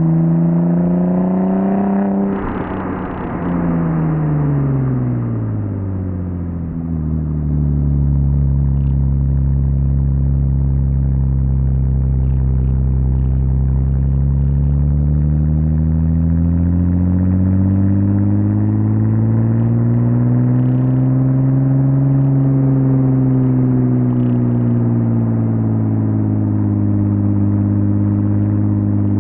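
1998 Audi S4 B5's 2.7-litre twin-turbo V6 revving up under acceleration. A short clatter comes as the throttle closes, and the revs then fall away. It runs on at low revs, rising gently and easing off once more near the end.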